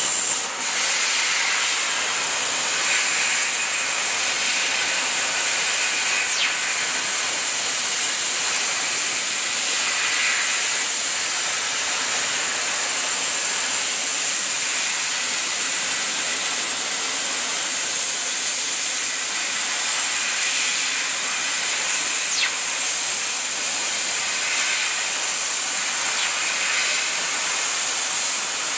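Fiber laser cutting machine cutting thin sheet metal: a steady, loud hiss of the assist-gas jet from the cutting nozzle, swelling slightly now and then.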